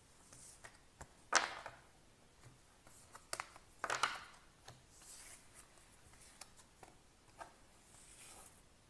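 Tarot cards being slid across a table and picked up into a stack, with two sharper card slaps and rustles about one and a half and four seconds in and lighter taps and brushing between.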